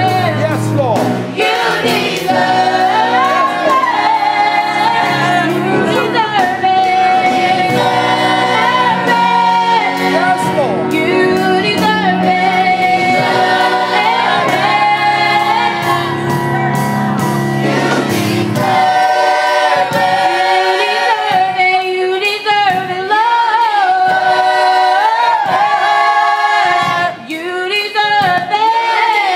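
Gospel choir singing behind a female soloist, with steady low instrumental accompaniment. About two-thirds of the way through the accompaniment drops out and the voices carry on a cappella.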